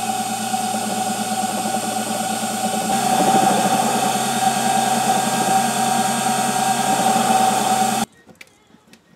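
Emco Unimat SL mini lathe running, a steady motor hum with a fast even pulsing, as it turns a small brass part; the sound gets a little louder and changes about three seconds in. It cuts off suddenly about eight seconds in, leaving only a few faint clicks.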